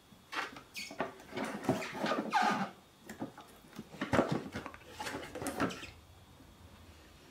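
Cardboard product box being handled and turned over by hand: irregular scraping and rubbing of fingers on the cardboard with light knocks, stopping about six seconds in.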